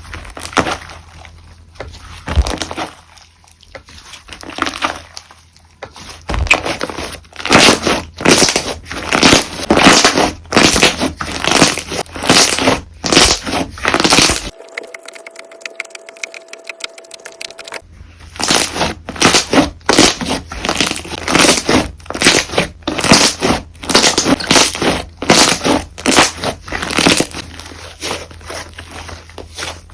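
Slime being squeezed and pressed by hand, giving a run of crackling, popping squishes a few times a second. About halfway the squishing stops for a few seconds, and only a faint steady tone is heard.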